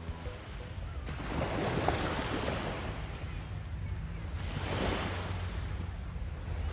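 Small waves washing onto a sandy beach, the hiss of the surf swelling twice about three seconds apart, over a steady low rumble of wind on the microphone.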